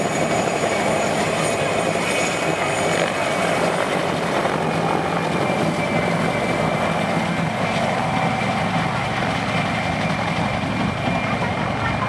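PZL-Świdnik Mi-2 helicopter, its twin turboshaft engines and main rotor running loud and steady with a steady turbine whine as it flies away. The sound thins slightly as it draws off.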